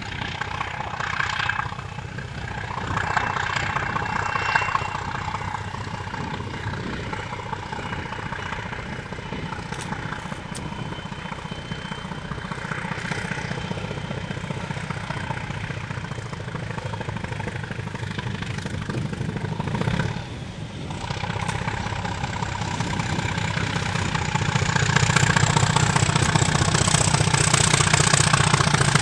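Diesel locomotive engine running as the Y-class locomotive hauls its train past, with a steady throbbing that grows clearly louder over the last few seconds as it draws near.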